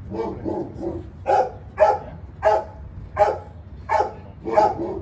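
A dog barking repeatedly and steadily, about nine barks spaced roughly two-thirds of a second apart.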